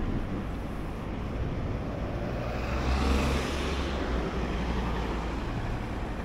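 A small car driving past close by, its engine and tyre noise swelling to a peak about three seconds in and then fading.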